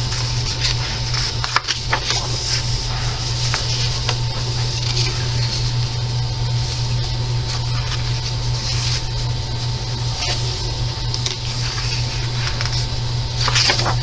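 Paper pages of a coloring book being turned and handled, with scattered soft rustles and brushes, over a steady low hum and hiss.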